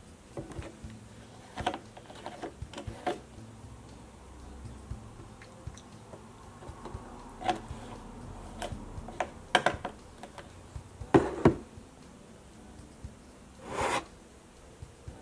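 Scattered knocks and clicks of art supplies being handled on a tabletop as a plastic jug of solvent is lifted and moved, with the loudest pair of knocks about 11 seconds in. Near the end comes a short clatter as a cup full of paintbrushes is picked up.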